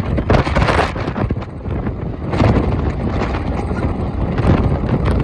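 Strong wind buffeting the microphone: a loud, rough rumble that swells and dips in gusts.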